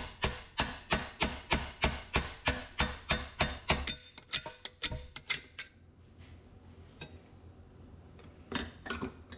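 Hammer blows on a steel tool set against a big nut on the Farmall 300 torque amplifier, tapping to turn it loose: a rapid, even run of metallic strikes, about three a second with a slight ring, growing weaker before stopping about six seconds in, then two more strikes near the end.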